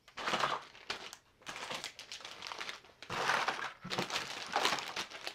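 Plastic fishing-lure packages crinkling and rustling in irregular bursts as a hand rummages through a heap of them and pulls packs out.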